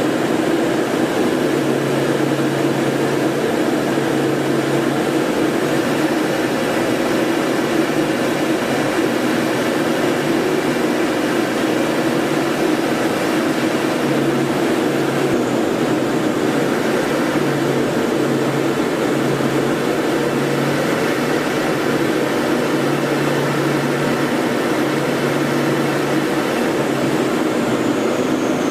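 Steady engine and airflow noise heard inside the cockpit of a training aircraft in flight. A low hum cuts in and out every second or two over it.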